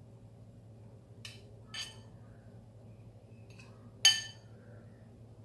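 A metal spoon clinking against a ceramic bowl while scooping sauce: three short clinks, the loudest about four seconds in.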